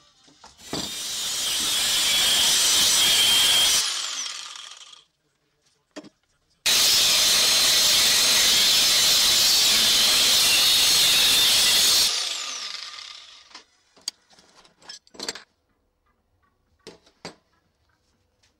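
Angle grinder with a cut-off disc cutting through a steel bar in two long runs, each followed by the disc's falling whine as it spins down. A few short sharp knocks follow near the end.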